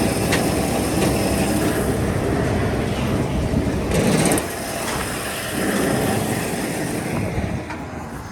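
Tractor and round baler running while baling hay: a steady mechanical rumble with a louder rush about four seconds in, after which the level drops slightly.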